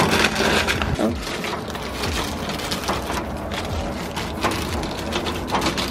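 Plastic snack wrappers crinkling and rustling as packets are handled and pushed into a vending machine's spiral coils, with scattered small knocks.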